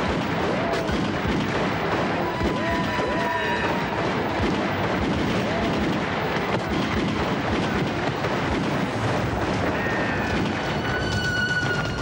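Film gunfight soundtrack: repeated pistol shots and impacts going off throughout, over dramatic background music.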